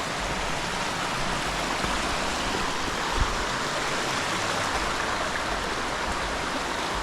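Steady rushing water, with one short knock about three seconds in.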